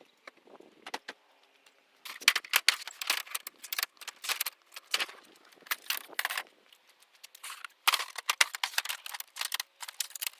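Metal gear being handled: jangling and rattling in repeated bursts of quick clicks, starting about two seconds in.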